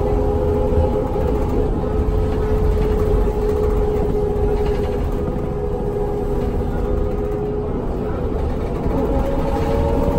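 Heard from inside the cabin of a 2004 New Flyer D40LF transit bus under way: a Cummins ISL diesel rumble with a steady drivetrain whine. About eight seconds in the whine fades, and a new whine starts, rising slowly in pitch as the bus picks up speed.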